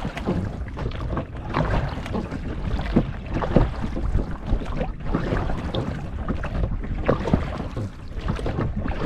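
Water splashing and sloshing around a small boat on a lake, in uneven irregular strokes, with wind rumbling on the microphone.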